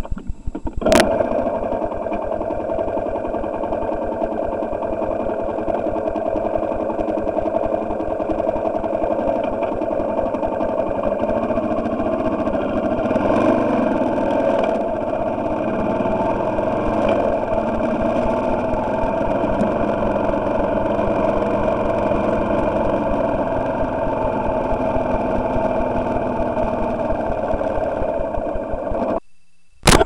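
Motorcycle engine, freshly overhauled, running steadily under way after a sharp click about a second in, heard from a camera mounted on the bike. The sound breaks off abruptly about a second before the end.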